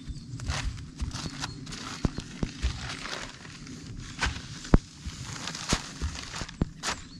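A horse's hooves stepping onto and shifting about on a plastic tarpaulin, the tarp crinkling and crackling under its weight. Irregular rustling with several sharp snaps, the loudest about halfway through.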